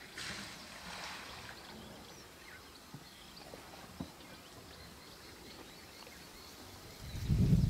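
African bull elephant wallowing in a mud bank, with wet mud being stirred and splashed and a loud low thump near the end. Faint bird chirps in the background.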